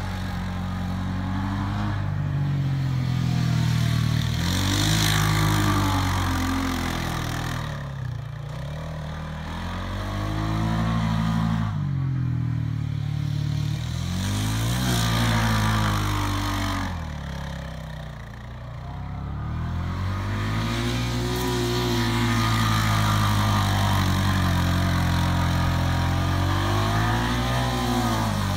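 Honda Pioneer 500 side-by-side's single-cylinder engine revving under load in sand, its pitch climbing and falling several times as the throttle is worked. The pitch drops away briefly about 8, 12 and 18 seconds in.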